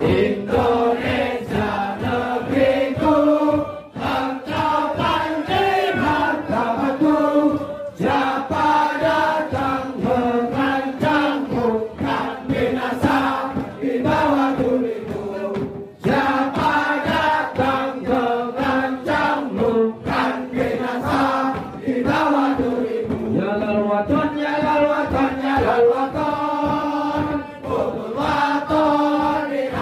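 A group of men chanting a rhythmic song together in unison, loud, in phrases that pause briefly every few seconds.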